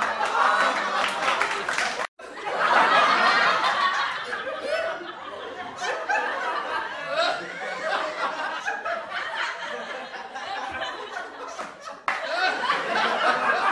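Several people laughing and talking over one another, the words not clear. The sound cuts out for a moment about two seconds in and breaks again near the end.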